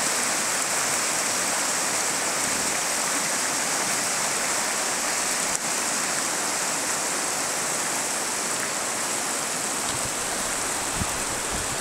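Shallow, fast river running over rocks and stones: a steady, even rush of water.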